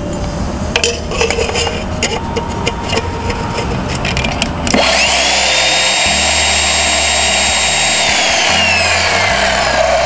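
Ryobi chop saw's electric motor switched on about halfway through, whining quickly up to speed and running free with the blade raised, then released and winding down with a slowly falling whine near the end. Before it, light clicks and taps of an aluminium bottle being handled against the saw's fence.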